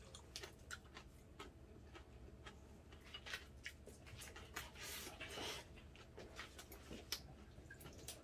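Faint eating sounds: soft clicks of metal chopsticks against a bowl and light chewing, with a short, slightly louder rustle about five seconds in.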